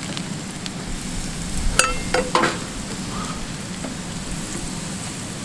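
Breaded catfish pieces sizzling steadily as they deep-fry in hot avocado oil, with a couple of sharp knocks about two seconds in.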